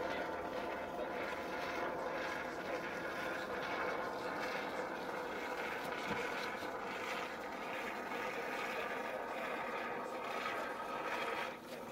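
Handheld can of polyurethane mounting foam hissing and sputtering steadily as a bead of foam is laid into the gap between logs, easing off briefly near the end.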